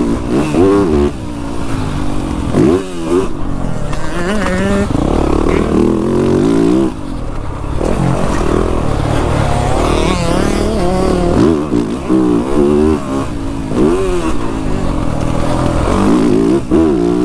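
Motocross bike engine, heard on board, revving up and dropping back over and over as the rider works the throttle around the dirt track.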